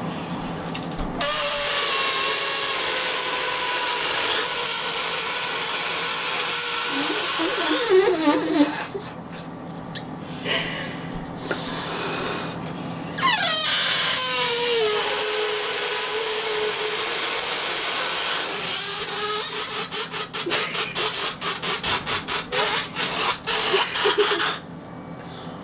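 Air squealing out of inflated balloons as their necks are stretched: two long, loud screeches whose pitch wavers and slides down, then a rapid fluttering sputter from about 18 seconds in as the air runs out.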